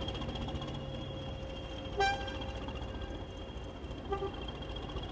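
Two short toots of a diesel locomotive's horn, a loud one about two seconds in and a shorter, quieter one about two seconds later, over the low rumble of a British Rail class 20 locomotive running slowly past.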